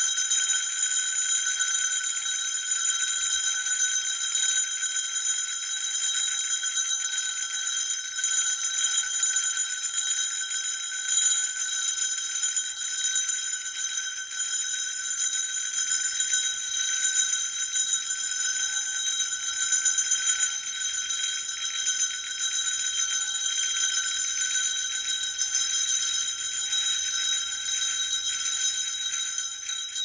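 Sleigh bells jingling continuously in a steady, even shake of many small bells, fading out near the end.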